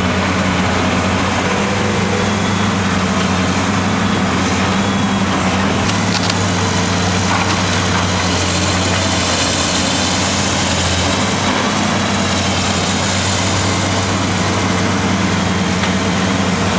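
Caterpillar 330B L excavator's six-cylinder diesel engine running steadily with a low, even drone while the hydraulics work the sorting grab. A few faint knocks come about six to eight seconds in.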